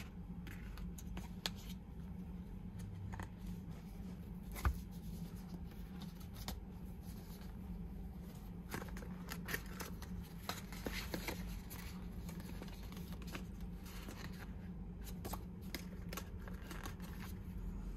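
Hands handling a cardboard box and its paper inserts: scattered light taps, slides and rustles of card, with one sharper tap about a quarter of the way through, over a steady low hum.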